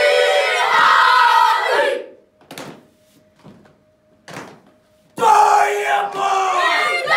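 A group of children and adults chanting a Māori haka in unison, with loud shouted lines. About two seconds in the chant breaks off for a pause of about three seconds, with two short sharp sounds in it, then the group comes back in together loudly.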